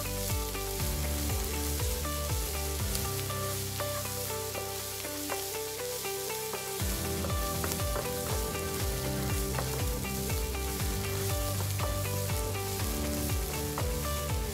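Chopped small onions, green chilli and tomato sizzling in melted butter in a nonstick frying pan, stirred with a spatula that scrapes and taps the pan; the vegetables are being lightly softened, just until they wilt.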